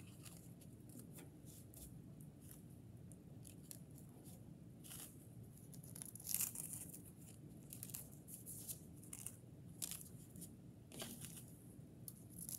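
Faint crinkling and rustling of tissue paper squares being handled and pressed onto sticky contact paper: scattered short crackles over a low steady room hum.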